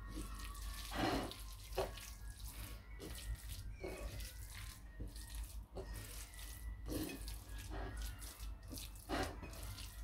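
Wet squishing of a hand kneading and mixing a moist chermoula paste of chopped herbs, oil and lemon on a ceramic plate, in soft, irregular squelches.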